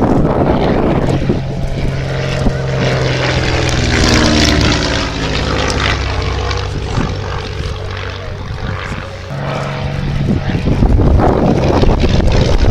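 Ryan Navion single-engine propeller aircraft flying a low display pass, its piston engine and propeller drone shifting in pitch as it sweeps by. It grows louder about four seconds in, eases off around nine seconds, then builds again toward the end as the aircraft comes past once more.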